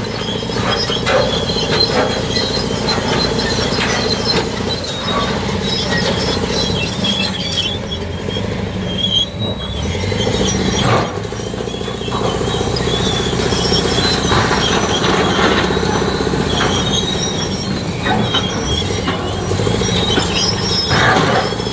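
Fiat-Hitachi FD30C crawler dozer's diesel engine running hard under load as it pushes, with its steel tracks giving a high metallic squeal that comes and goes.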